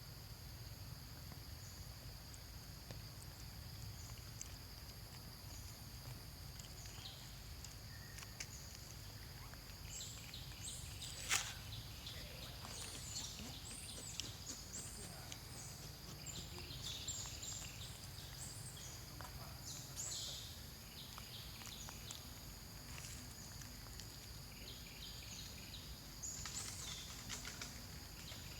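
Repeated short, high-pitched chirping calls from a small animal, coming in clusters from about a third of the way in, over a steady high whine and a low hum. A single sharp click sounds just before the middle.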